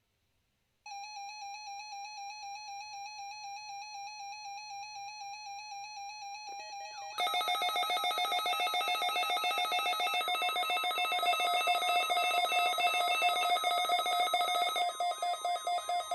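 Weather alert radios sounding their alarms for NOAA Weather Radio's weekly test of the warning alarm feature. One rapid pulsing beep starts about a second in, and about seven seconds in more alarms join, louder and layered.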